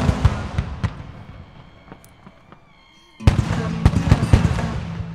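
Handmade aerial fireworks bursting with dense crackling. One volley's crackle dies away over the first two seconds or so, and a fresh loud volley of crackles starts a little after three seconds in.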